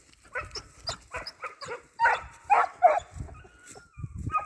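Hare hound giving tongue in a quick run of short, pitched barks, about three a second, the loudest about two to three seconds in, as it runs a hare hunt.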